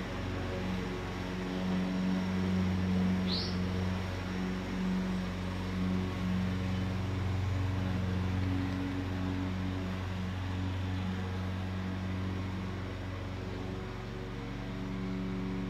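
Steady low hum of an engine or motor running, wavering slightly in level. About three seconds in there is one short, high rising chirp.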